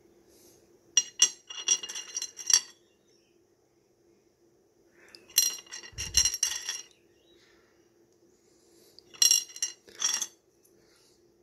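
Rough opal stones clinking and clicking against one another and the dish as a hand rummages through the pile, in three short bursts about four seconds apart, the middle one with a dull bump. A faint steady hum runs underneath.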